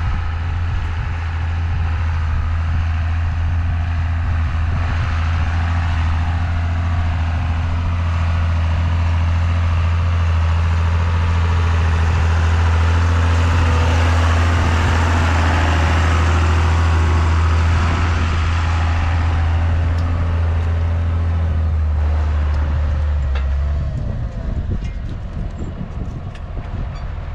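Tractor engine running under load as it pulls a disc cultivator through the soil and passes close by, loudest in the middle; the low engine note drops away near the end as the tractor slows to a stop.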